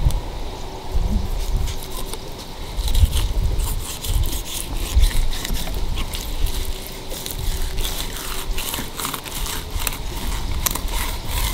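Skinning knife sawing back and forth between the skin and flesh of a mutton snapper fillet on a wooden board, with irregular scrapes and small clicks of the blade on the wood that come thicker in the last few seconds, over a low rumble.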